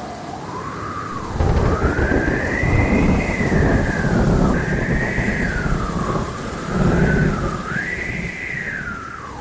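Storm wind howling with a whistling tone that rises and falls in long swoops. A heavy low rumble of thunder comes in about a second and a half in and swells again near the end.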